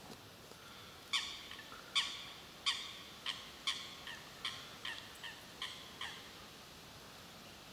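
Mallard quacking: a series of about ten loud, harsh quacks, the strongest near the start, then weaker and coming quicker toward the end, the pattern of a hen mallard's descending call.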